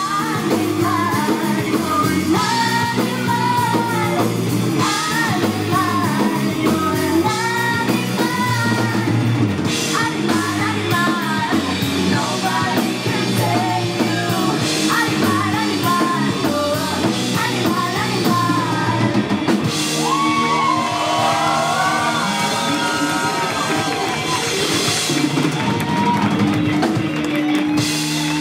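Rock music: a woman singing lead over electric guitars and a drum kit.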